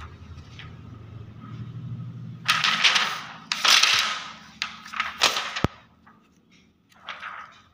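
A 75-micron clear polyester film sheet being flexed and handled, crackling in a run of sharp bursts from about two and a half seconds in, with one sharp click in the middle and a last crackle near the end. A low rumble comes before the crackles.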